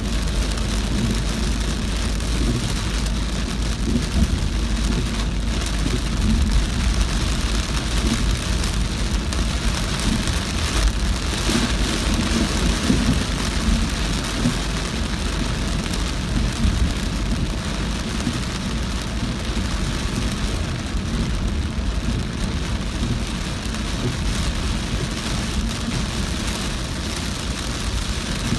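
Heavy rain beating on a moving car, over a steady low rumble of the car and its tyres on the wet road.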